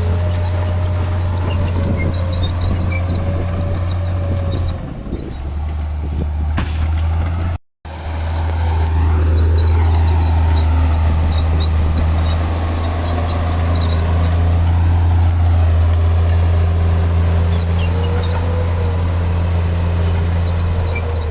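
Heavy diesel engine of earthmoving machinery running steadily under load, with a low, even hum and higher pitches slowly rising and falling. It eases off about five seconds in, cuts out for an instant just under eight seconds in, then comes back loud.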